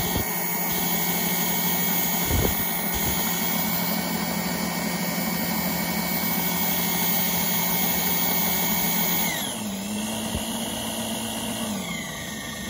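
Half-inch electric drill running at full speed, spinning a Mercury inline-six outboard water pump whose new rubber impeller is fitted with its blades backwards, while the pump jets water into a tub. The drill's whine falls in pitch and gets quieter about nine seconds in, and falls again near the end.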